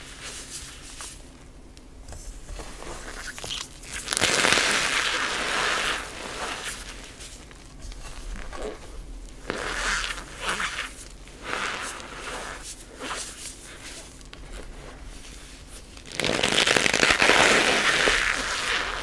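Hands slowly squeezing and crushing cornstarch-topped gym chalk: a run of squeaky, crackling crunches as the packed powder compacts. The two longest, loudest squeezes come about four seconds in and again near the end, with shorter crunches between.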